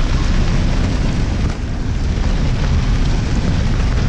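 Heavy rain falling on a vehicle's roof and windows, heard from inside the cabin, as a steady dense noise, with the vehicle's engine and road noise underneath.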